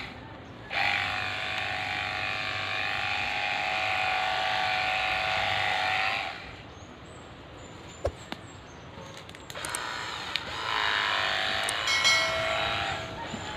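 Battery-powered backpack sprayer's pump running with the hiss of its spray, in two stretches: about five seconds from just after the start, then about three seconds near the end after a short pause.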